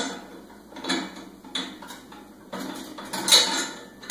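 Steel parts of a Brinly lawn sweeper clinking and clanking as a rod and its hardware are fitted by hand. There are a few separate clinks about a second apart, then a louder run of clanking about three seconds in.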